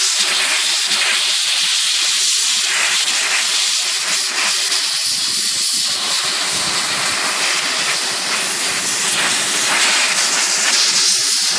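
Compressed-air nozzle hissing in one long, continuous blast, blowing chemical cleaner residue off a typewriter's key levers and comb; it cuts off abruptly at the end.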